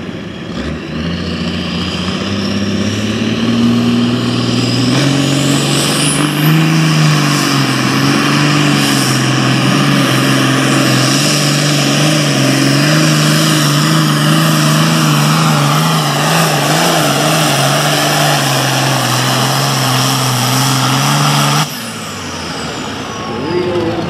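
International super farm pulling tractor's diesel engine at full throttle, pulling a sled. The engine note climbs over the first few seconds, then holds high with a slight waver as it works under load, until it cuts off suddenly near the end, leaving a quieter engine sound.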